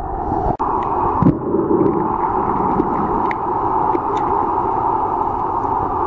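Muffled underwater ambient noise picked up through a camera housing: a steady watery hiss with a few faint scattered clicks, briefly cutting out about half a second in.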